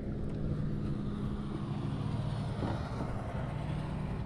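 Small boat engine running steadily at low revs, a constant low hum.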